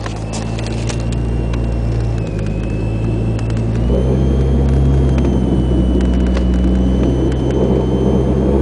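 Chevrolet Cavalier heard from inside the cabin while driving: steady engine drone and road rumble with a thin high whine above it. The engine note and loudness step up about four seconds in.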